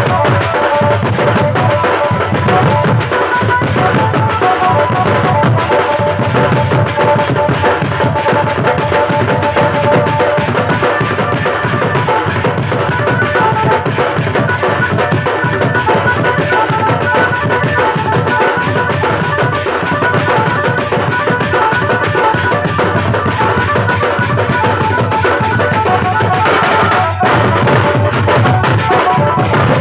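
A band of large stick-beaten drums playing a fast, dense rhythm together, with brass hand cymbals clashing and ringing over the deep drumbeats.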